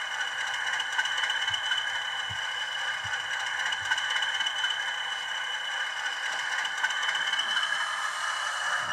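Class 20 diesel engine sound played by a Zimo sound decoder through a model locomotive's small speaker: a steady rattling engine run, thin in the bass.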